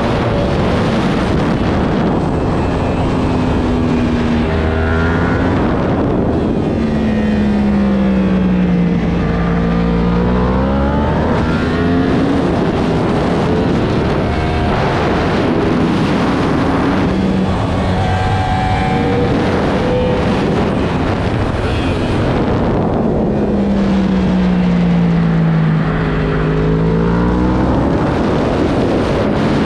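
Racing superbike engine under hard riding through a lap. The revs drop and climb again several times as the bike brakes into corners and accelerates out, over heavy wind rush on the onboard microphone.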